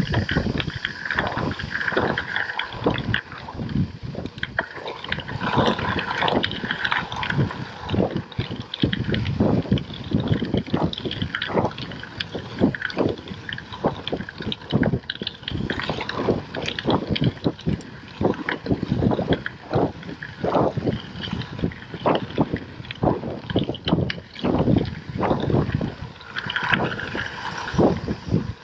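Gravel bike's tyres rolling over a loose gravel path, with constant irregular crunching and rattling of the bike over the stones, mixed with wind buffeting the GoPro's microphone.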